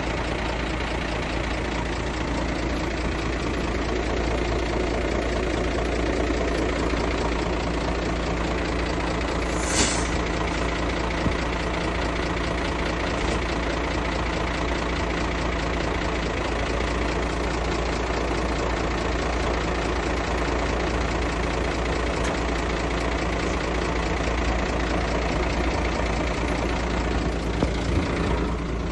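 Heavy diesel engine of an earthmoving machine running steadily, with a brief high hiss about ten seconds in.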